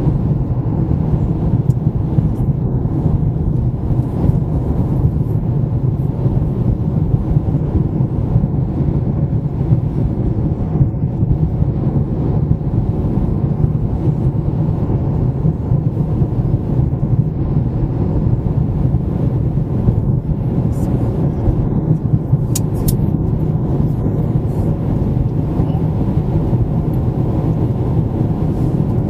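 Car driving along the road: a steady, even noise of tyres and engine, low-pitched and unchanging.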